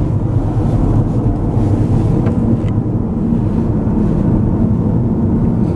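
Steady low road and wind rumble inside a moving car's cabin.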